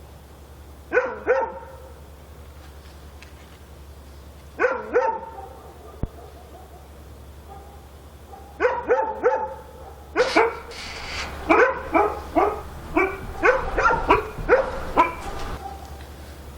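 Dog barking: two short barks about a second in, two more a few seconds later, then a longer run of quick barks in the second half. A steady low hum sits underneath.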